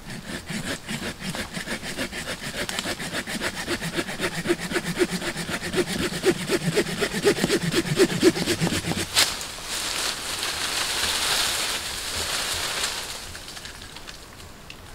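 Hand saw cutting through a sapling at its base: quick, even strokes, several a second, growing louder for about nine seconds, then a sharp crack as the stem gives way. A rustle of leaves and branches follows for a few seconds as the sapling comes down.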